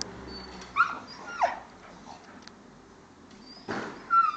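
Dog whining: a few short, high-pitched whines, one sliding down in pitch.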